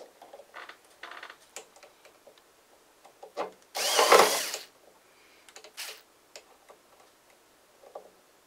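Cordless drill with a socket extension driving an engine-mount screw: one run of about a second, a little under four seconds in, with a faint rising whine. Small clicks of tools handled on the mount come before and after it.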